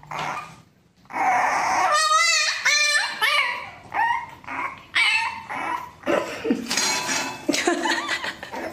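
French bulldog puppy whining and yipping: a string of short, high cries that bend upward, starting about a second in and coming about once or twice a second.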